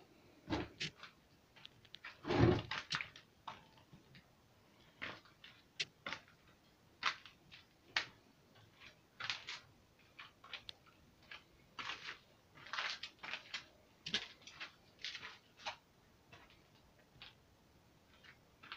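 Scattered light knocks, clicks and scuffs of someone moving about and handling things on a concrete workshop floor, with a heavier thud about two and a half seconds in.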